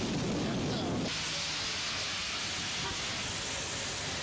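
Heavy rain hissing, with the low rumble of traffic on the waterlogged road. The rumble drops away abruptly about a second in, leaving a brighter, steady hiss.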